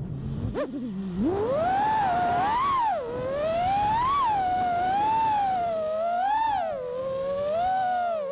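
T-Motor ITS 2208 1750kv brushless motors and propellers of an FPV freestyle quad whining. The pitch rises and falls continuously with the throttle, with a sharp dip and a climb back about a second in.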